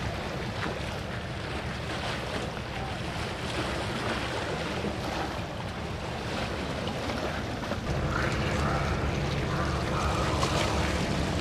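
Outdoor harbour ambience: wind buffeting the microphone over a steady rush of water, getting louder about eight seconds in.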